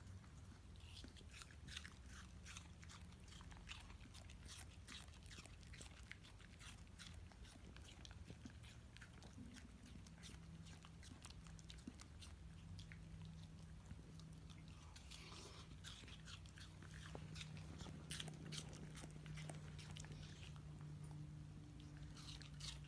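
Swedish Vallhund puppy crunching and chewing pieces of apple, a long run of faint sharp crunches. A faint low steady hum comes in about ten seconds in.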